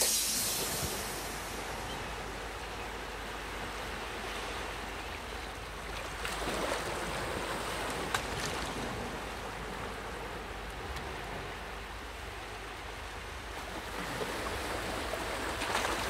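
Small waves washing at the shoreline with wind on the microphone, the wash swelling twice.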